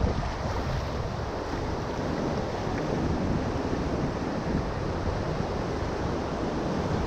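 Ocean surf washing up a sandy beach in a steady wash, with wind rumbling on the microphone.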